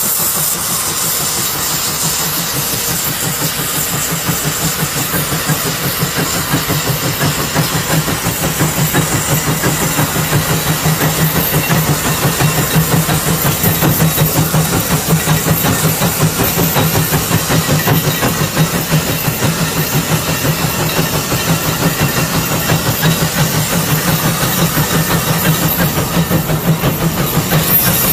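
Case steam traction engine working under load pulling a plough: its exhaust chuffs in a steady fast rhythm over a constant hiss of steam, getting somewhat louder after the first several seconds.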